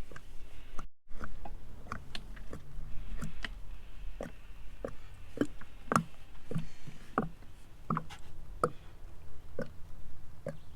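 Motor oil poured from a jug through a funnel into the engine, glugging in irregular knocks about twice a second as air gulps back into the jug.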